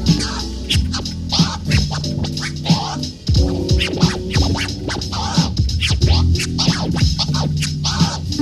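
Vinyl record scratched back and forth by hand on a turntable, the mixer cutting it in and out into quick rising and falling squiggles, over a backing beat.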